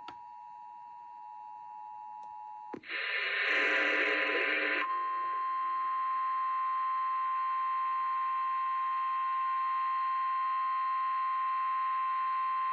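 Emergency broadcast alert tones over radio: the two-tone EAS attention signal sounds steadily and cuts off under three seconds in, a harsh two-second burst of noise follows, then the steady single-pitch 1050 Hz NOAA Weather Radio warning alarm tone holds for about eight seconds, announcing an emergency warning broadcast.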